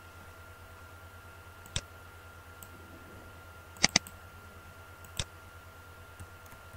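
Computer mouse clicks: a single click, then a quick double click about two seconds later, then another single click, all over a faint steady hum.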